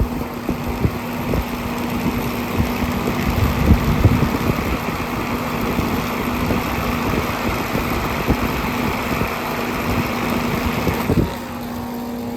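Central air conditioner condenser unit running with a steady hum and the rush of its fan, with a small homemade fan spinning in the condenser's airflow. The rushing sound builds over several seconds, then drops off sharply about eleven seconds in, leaving the unit's hum; low thumps come and go.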